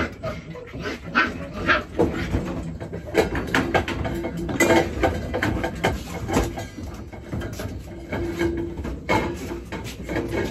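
Young puppies whimpering and yelping in short calls, amid frequent clicks and knocks.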